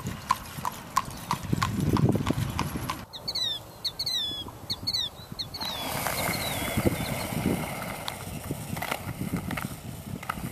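Horse's hooves clip-clopping on pavement at a trot, about three beats a second, as it pulls a buggy. After about three seconds this gives way to a bird chirping repeatedly in short falling notes. Then comes steady outdoor noise with scattered knocks.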